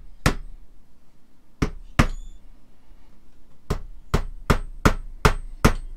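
A small 7-ounce hammer tapping decorative tacks in: three separate taps, then a quick even run of six taps, about two and a half a second.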